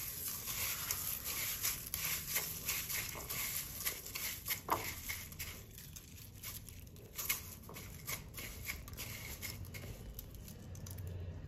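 Crushed cornflakes crackling and rustling as hands press a batter-coated soya chaap into them, a dense, irregular run of small crunches.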